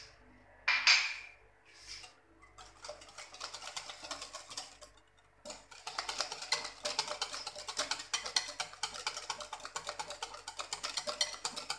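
Wire balloon whisk beating a runny egg, sugar and oil batter in a glass bowl, its tines clicking against the glass in a fast, even rhythm, with a short break near the middle. A single sharp knock comes about a second in.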